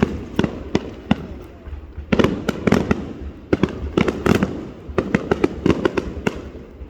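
Aerial fireworks display going off: a rapid run of bangs and crackles, densest in clusters about two seconds and four seconds in.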